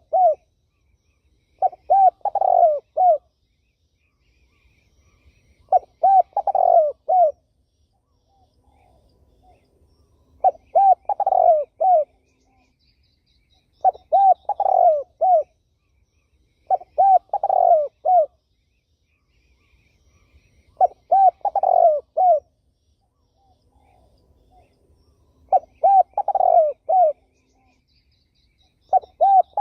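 Spotted dove (terkukur) cooing: a short phrase of three or four low coos repeated about every four seconds, with faint chirps of small birds in the gaps.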